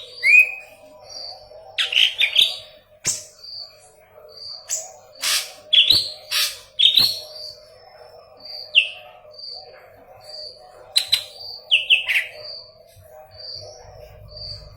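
A murai daun kepala kuning (yellow-headed leafbird) singing a fast, varied song: sharp chirps and quick downward-sweeping whistles, over a run of short, evenly spaced high peeps about three every two seconds. A faint steady hum lies underneath.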